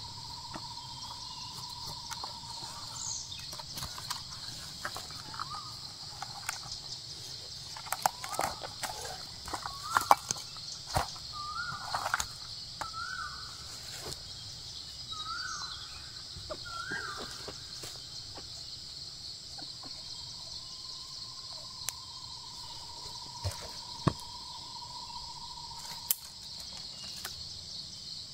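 A red junglefowl decoy hen gives a run of short clucking calls through the middle seconds. Under it runs a steady high insect drone, with scattered sharp clicks and rustles of handling in dry pine litter.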